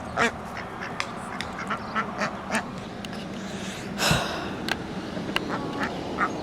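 Ducks, mallards and Pekins, quacking close by in short calls, a few each second, with a brief rushing noise about four seconds in.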